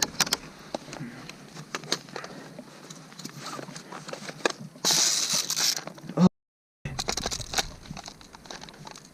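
Rustling, crinkling and scattered clicks and knocks from an airsoft player moving with his gear, with a denser hiss about five seconds in and a brief dropout of the audio just after.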